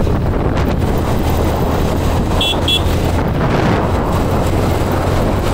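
Motorcycle running at road speed with wind and road noise on the microphone, and two quick high-pitched beeps about two and a half seconds in.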